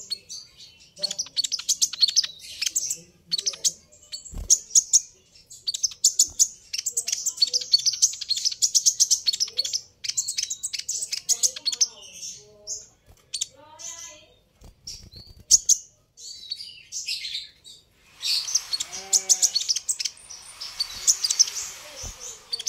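Van Hasselt's sunbird (kolibri ninja) chirping and trilling in fast, high-pitched runs, broken by short pauses.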